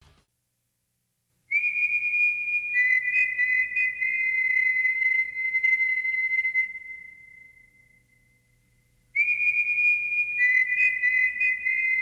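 High, steady whistle-like tones at two close pitches, the lower one joining about a second after the first. They start abruptly, fade out about seven seconds in, and start again the same way about nine seconds in, with faint clicks above them.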